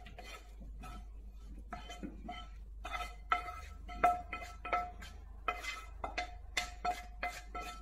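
A spatula scrapes fried vegetables out of a metal frying pan into a roasting pan. From about a second and a half in come irregular knocks, one or two a second, and the pans ring after many of them.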